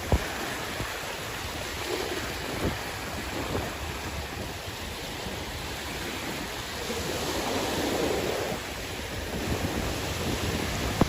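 Sea waves washing onto the shore in a steady rush, with one wave swelling louder and receding past the middle. A few short low thumps of wind buffet the microphone.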